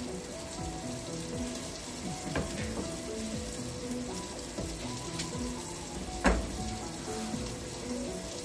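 Food frying and sizzling in a pan, with a sharp knock about six seconds in. Soft background music with held, stepping notes plays under it.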